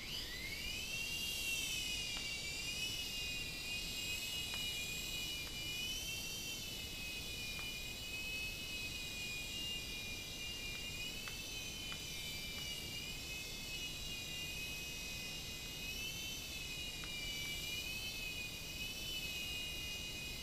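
Protocol AirHawk micro RC helicopter's electric motors and rotors whining as it spins up and lifts off, a rising whine at the start. After that the pitch wavers gently up and down as it hovers and flies.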